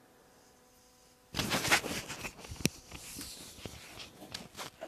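Handling noises: a wax rag rustling and rubbing, with sharp metal clicks, starting about a second in and loudest over the next couple of seconds, then scattered quieter clicks.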